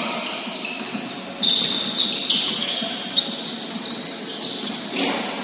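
Basketball shoes squeaking on a hardwood gym floor during play, with a ball bouncing and a few players' voices. The squeaks come thickest between about one and a half and three seconds in.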